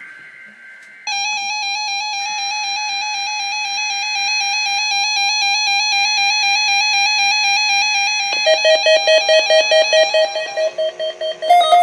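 Weather radio receiver's alert alarm going off for the station's required weekly test: a loud warbling beep tone that, about eight seconds in, changes to rapid pulsing beeps at a lower pitch, about four a second. At the start, faint buzzy data bursts of the station's coded alert header.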